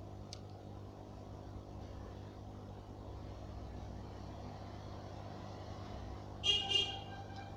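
Steady low electrical hum of an aquarium pump running. About six and a half seconds in, two short high-pitched chirps follow in quick succession.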